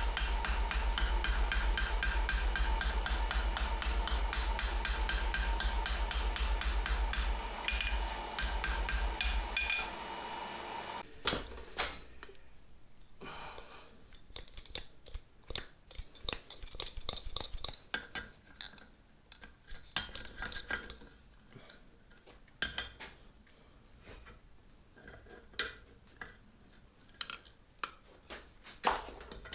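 Rapid, even run of light hammer blows on steel for about ten seconds, peening over the rivet of a pair of forged tongs, with a low steady hum beneath. The hammering stops and gives way to scattered, quieter metallic clinks and knocks as the steel is handled.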